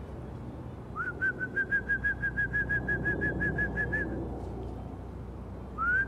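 A whistle blown to call flying pigeons home: a short rising note about a second in, then a trilling whistle at about seven pulses a second for some three seconds, starting again near the end.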